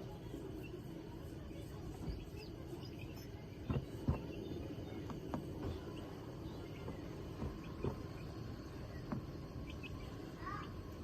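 Pet call duck ambience: scattered soft taps and clicks from the duck moving about, over a steady low background hum, with one brief call near the end.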